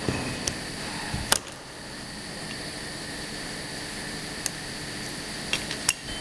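Automatic through-hole component insertion machine running: a steady mechanical hum with faint high whining tones, broken by about five sharp clicks at uneven intervals, the loudest a little over a second in.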